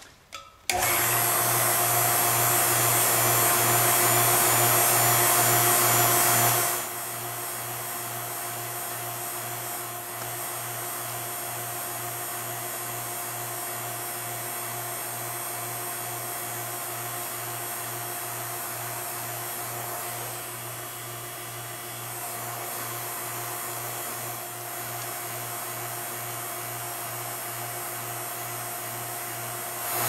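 HVAC refrigeration vacuum pump starting up about a second in and running with a steady hum while evacuating a flexible refrigerant hose. After about six seconds it drops to a noticeably quieter steady run, as it does once the hose is pulled down into deep vacuum.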